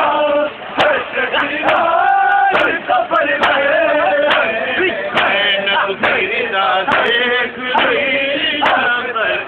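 A crowd of men chanting a Muharram mourning lament (noha) together, with sharp slaps of hands on bare chests (matam) landing roughly once a second.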